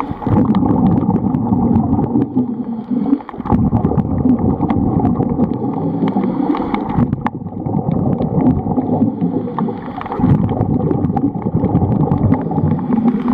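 Scuba diving heard underwater: a steady muffled rush of water with a swell of exhaled regulator bubbles gurgling every three to four seconds, and small clicks throughout.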